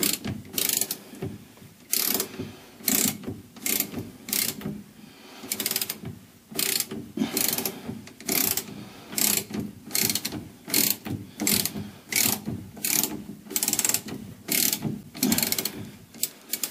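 Hand ratchet wrench clicking in short, even back-and-forth strokes, about one and a half a second, as a nut is worked on a shock absorber mount.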